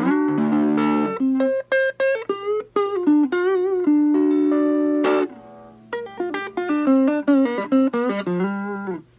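1964 Fender Telecaster electric guitar played through an amp on its neck pickup: a chord at the start, then a lead line of single notes with bends and vibrato, with a short pause a little past halfway. It is a playing test of the newly replaced control panel wiring and pickup selector.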